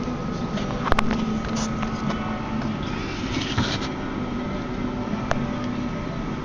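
Small clicks and light scraping of fingers pressing an iPhone 3GS flex cable connector into its socket, with a sharp click about a second in, over a steady background hum.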